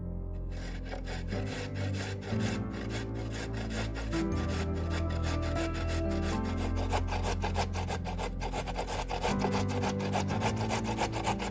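A carrot grated on a stainless steel box grater: quick, repeated rasping strokes that start about half a second in, over background music.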